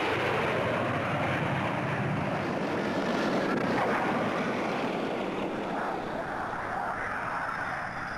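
English Electric Lightning Mark 2 jet fighters' twin turbojet engines giving a steady roar, easing off slightly near the end.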